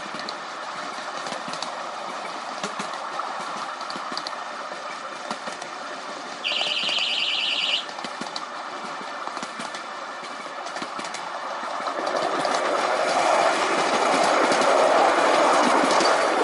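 A miniature railway train running along the track, its wheels clicking over the rails. About six seconds in, the locomotive's horn sounds once, a buzzing high tone lasting just over a second, as the train passes a whistle board. From about twelve seconds in, the running noise grows louder.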